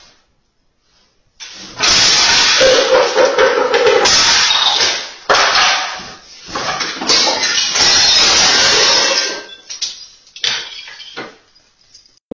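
Loud, harsh rustling and clattering from a cat disturbing a balloon display and scattering debris, picked up by a security camera's microphone. It comes in long noisy stretches that start suddenly about two, five and seven seconds in, then breaks into short scuffs near the end.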